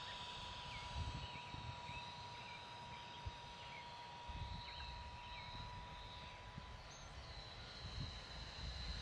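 Wind buffeting the microphone in uneven gusts, with the faint high whine of a 35 mm electric ducted-fan model jet flying at a distance, growing stronger near the end, and a few small bird chirps.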